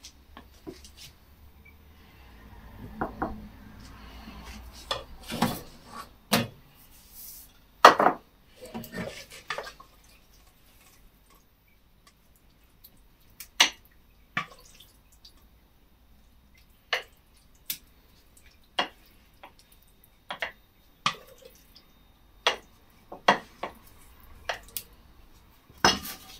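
A metal spoon clinking, knocking and scraping against a stainless steel saucepan as leftover stew is spooned out into dishes. There is a cluster of knocks in the first third, then single sharp clinks about once a second through the second half.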